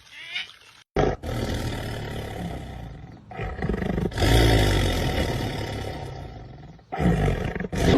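A big cat roaring: two long roars, the second louder, then a short one near the end.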